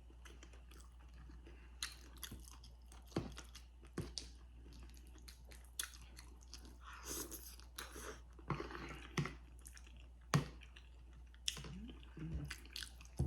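Close-up chewing of crispy fried chicken wings: irregular crunches and crackles of the fried skin, with wet mouth and lip sounds between bites.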